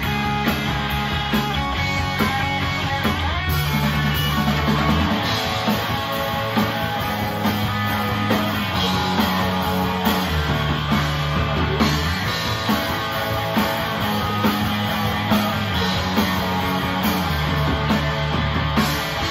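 Rock band playing live: electric guitar, bass guitar and drum kit, with bass notes shifting every second or so under a steady drum beat.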